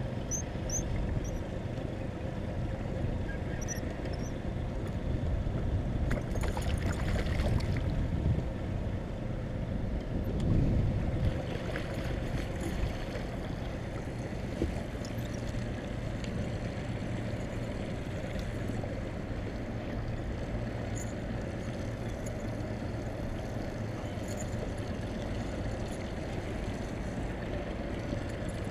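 Small boat's motor running steadily at trolling speed, with water noise around the hull.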